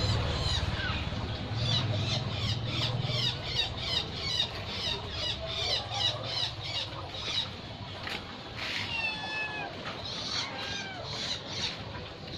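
Animal calls: short high chirps repeated about three times a second, then a few longer falling calls about nine seconds in. A low rumble fades out over the first few seconds.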